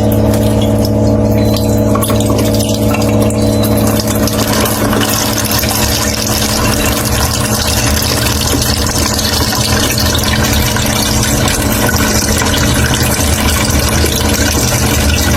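A motor or engine running steadily at an even speed, with a constant hum.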